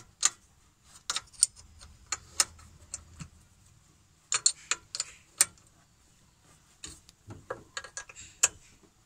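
Open-end spanner clicking against the carburetor's flange mounting nuts and metal as the two nuts are tightened evenly: a string of irregular sharp metal clicks, with a short pause past the middle.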